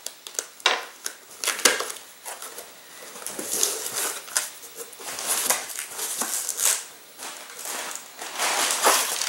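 Cardboard shipping box being opened by hand: flaps pulled back and the packing paper inside rustled and crinkled, with scattered clicks and knocks.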